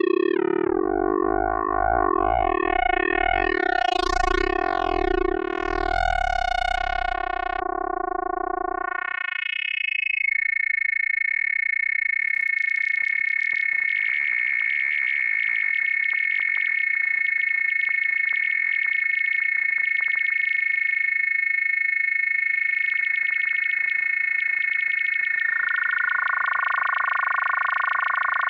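K-ACCUMULATOR synthesizer module's raw oscillator output. For the first nine seconds or so it is a fast-pulsing, warbling pulsar texture over a deep low rumble. It then settles into a steady, bright sustained tone shot through with crackling clicks as the patch moves into damped sync, and new lower tones join near the end.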